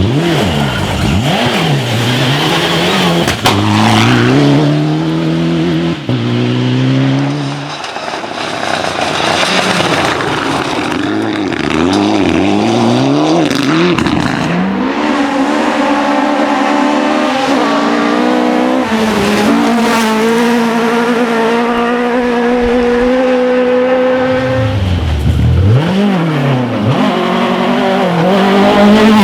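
Rally car engine at full throttle on a forest stage, revving up and dropping back with each gear change, then held at high revs for a long flat-out stretch. Near the end the revs plunge and climb again as the car brakes, downshifts and accelerates.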